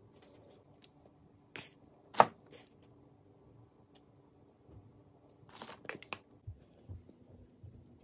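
Sunflower seeds clicking and rattling against a glass jar as a hand picks some out, with one sharp clink a little over two seconds in and a quick run of clicks around the sixth second. Softer knocks and rustles follow near the end.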